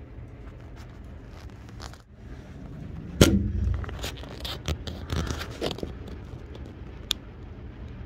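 A sudden loud knock about three seconds in, followed by a couple of seconds of irregular clicks, knocks and scraping, and one more click near the end, over a low steady hum.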